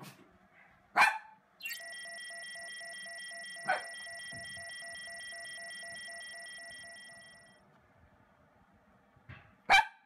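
Toy poodle barking: three sharp single barks, about a second in, near four seconds and at the very end. Between them a steady electronic tone sounds for several seconds and fades away.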